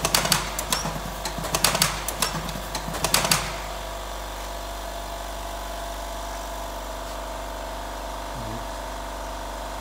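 Electric cigarette-tube filling machine running: its mechanism clacks irregularly for the first three and a half seconds, then the clacking stops and only the steady hum of its motor goes on.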